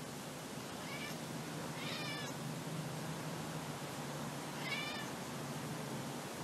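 A domestic cat meowing: three short, high calls, about a second in, about two seconds in, and near the end.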